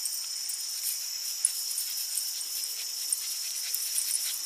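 A steady insect chorus of crickets chirring, with light rustling and sniffing as a small dog noses through the grass.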